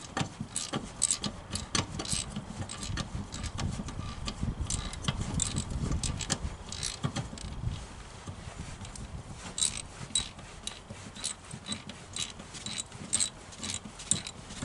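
Socket wrench working a 9/16 bolt loose on a mower: irregular metallic clicks and clinks, with a low rumble of handling about midway.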